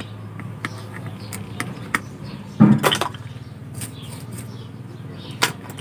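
Light clicks and taps from a circuit board and screwdriver being handled, with a louder knock a little under three seconds in and another near the end, over a steady low hum.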